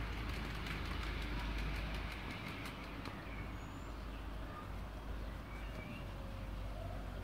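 Garden-railway model train running on its track: a steady low rumble with a run of faint, even clicks for the first few seconds, easing off a little after about two seconds. Birds chirp faintly now and then.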